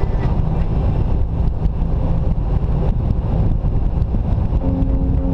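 Wind buffeting a camera microphone on a moving Jeep Wrangler, with a deep, steady rumble of the vehicle running along a paved road. Music comes in near the end.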